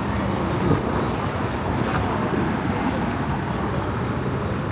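Steady low rumble of city background noise, traffic-like, with faint indistinct voices.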